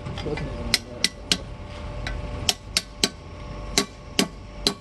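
Hammer blows on a steel drift held against a Tata truck's differential carrier while its crown wheel is being fitted: about eight sharp metallic strikes at an uneven pace, some in quick pairs.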